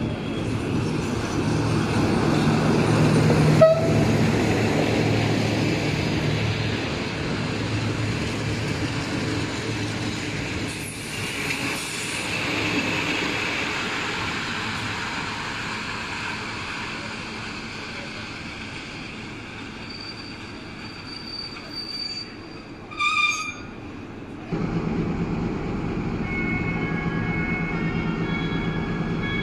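An LDH diesel-hydraulic locomotive hauling a regional passenger train into the station, its engine running loudest in the first few seconds and then fading, with rail and wheel noise. Near the end a brief high squeal is heard, then a steady engine hum sets in abruptly.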